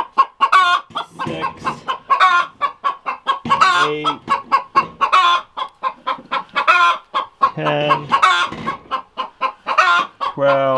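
Chicken hens clucking noisily in a coop: a dense run of quick, repeated clucks with no break.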